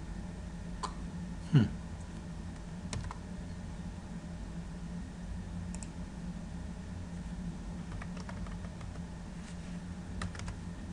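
Scattered keystrokes and clicks on a laptop's keyboard, a few single taps and short runs, over a steady low hum. One sharp knock about one and a half seconds in is the loudest sound.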